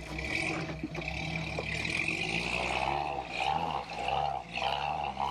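Toyota FJ40 Land Cruiser's engine running under load as it crawls up a steep rock slab without the winch. About halfway through, the revs begin to rise and fall over and over as the throttle is worked.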